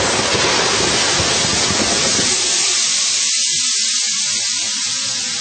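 Aircraft emergency escape slide inflating: loud, steady hiss of gas rushing into the slide, with the lower rumble under it falling away about halfway through.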